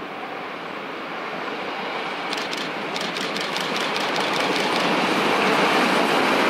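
Steam locomotive hauling a train of passenger coaches, approaching and passing, growing steadily louder. About two seconds in there is a quick run of sharp ticks lasting a couple of seconds.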